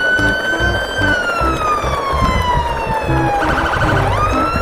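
Background music with a siren-like tone: it holds high, slides slowly down for a couple of seconds, warbles briefly and glides back up near the end, over a choppy repeating bass line.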